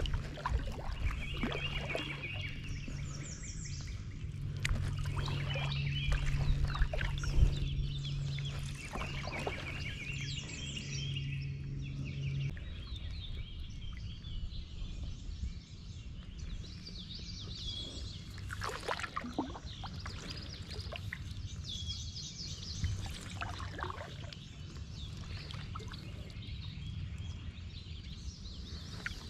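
Songbirds singing repeated short trilled phrases over quiet water sounds around a drifting kayak. A steady low hum underneath stops about twelve seconds in.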